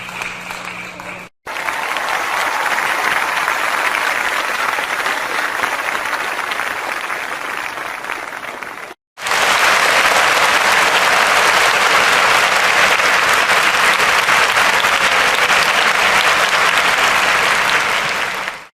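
Crowd applause, in three separate recordings cut together: a short tail, a break about a second and a half in, a longer stretch of steady clapping, then a sudden cut about nine seconds in to a louder, denser round of applause.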